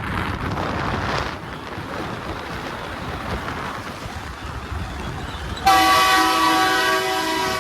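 Road and wind noise from a moving vehicle, then near the end a loud air horn sounds, several tones at once, held steady for about two seconds.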